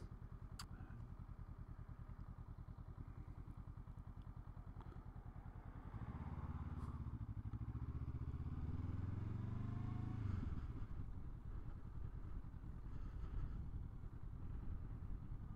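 Honda SCL500's parallel-twin engine idling with an even beat, then revving up about six seconds in as the bike accelerates, its pitch rising and falling, and easing off about ten seconds in.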